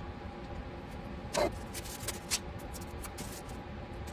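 Small hard parts and a plastic bag being handled while a resin statue is assembled: a brief squeak that falls in pitch about a second and a half in, then a few light clicks and taps. A steady low hum runs underneath.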